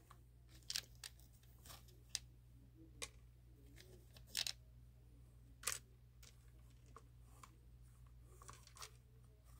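Faint, light clicks at irregular intervals, roughly one every second, as small plastic numbered balls are dropped one by one into a plastic lottery ball cage and tap against it.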